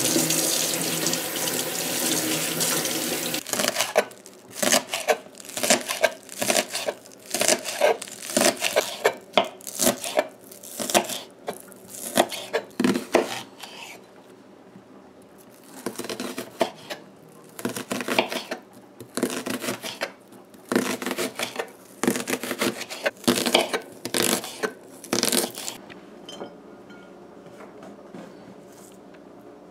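Kitchen tap running into a stainless steel sink while scallions are rinsed, stopping about three and a half seconds in. Then a chef's knife chopping scallions and slicing onion on a wooden cutting board: quick runs of sharp knocks with short pauses, dying away near the end.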